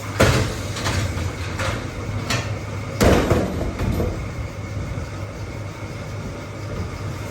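Factory machinery running with a steady low hum, broken by about six clanks and knocks; the loudest come just after the start and about three seconds in.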